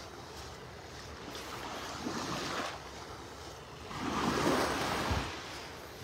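Small, gentle waves lapping and washing up onto a sandy shore, with two louder washes, about two seconds in and again around four to five seconds in.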